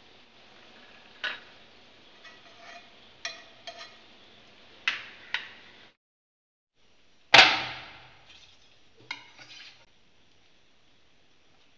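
Glass bowl clinking and tapping as cooked chickpeas are tipped into it from a pan, a handful of separate sharp clinks, some ringing briefly. About halfway through a single loud knock on wood, then a few lighter knocks, as vegetables are set out on a wooden cutting board.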